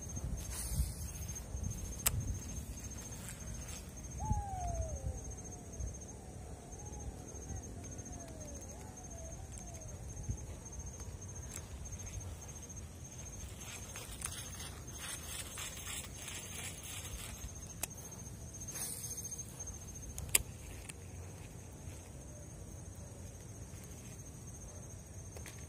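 An insect chirring in fast, even pulses at a high pitch over a low rumble of wind on the microphone, the chirring stopping about five seconds before the end. A short run of falling whistled calls comes about four seconds in, and there are a few sharp clicks from handling the baitcasting rod and reel.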